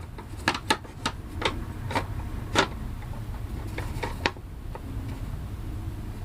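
Irregular sharp clicks and knocks from hardware being handled, about ten of them, mostly in the first four and a half seconds, over a steady low hum.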